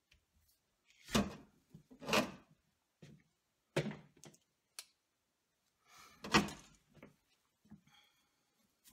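Dull knocks and clunks, about five loud ones spread unevenly with lighter ticks between them, from a thick electrical cable and its clamp connector being worked into a metal breaker panel box.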